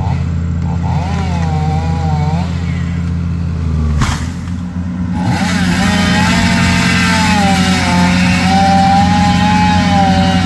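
Tracked excavator's diesel engine running steadily with a wavering whine. After a sharp cut about four seconds in, a chainsaw cuts at the base of a tree, its pitch wavering under load, over the excavator engine.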